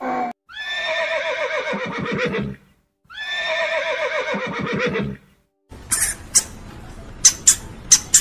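A horse neighing twice, each whinny about two seconds long and falling in pitch with a quavering shake. About two seconds before the end, a run of short, sharp, high-pitched clicks and squeaks begins.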